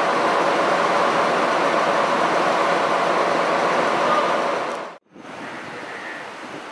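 Diesel locomotive running close by, a loud steady engine noise. It cuts off abruptly about five seconds in, leaving a quieter windy hiss.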